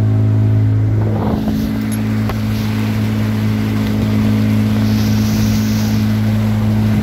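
Motorboat engine running steadily under way, a loud steady hum whose note shifts slightly about a second in, with the rush of water from the boat's wake.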